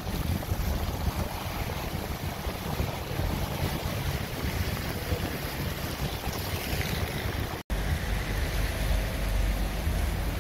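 Heavy rain falling and water pouring off shop roofs onto a flooded street, with wind buffeting the microphone as a low rumble. The sound drops out for an instant about three quarters of the way through.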